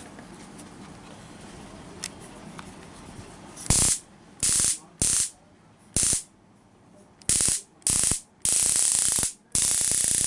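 Handheld '928 type' stun gun arcing between its front electrodes: eight loud crackling bursts starting about four seconds in, the early ones short, the last ones over half a second long.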